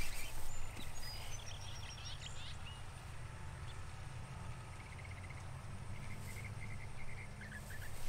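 Birds chirping now and then over a low, steady background rumble: a cluster of quick high notes about a second in, and a run of short repeated chirps near the end.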